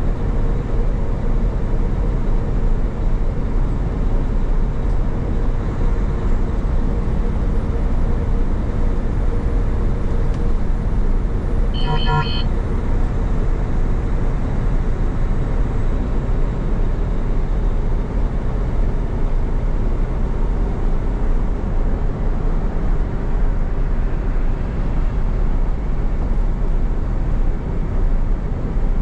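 Steady engine and road noise of a tractor-trailer at highway speed, heard inside the cab. About twelve seconds in, one short beep sounds over it.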